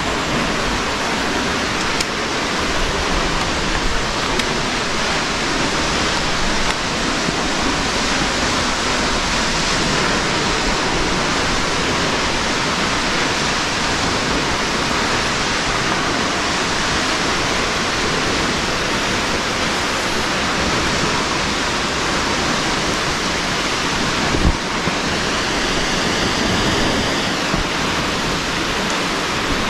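Steady loud rush of water, a waterfall or fast stream. A brief bump comes late on.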